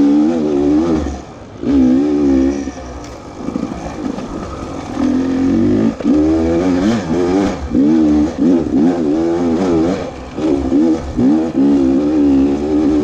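Beta 300RR two-stroke dirt bike engine revving in short on-and-off throttle bursts, its pitch rising and falling, with brief easings of the throttle.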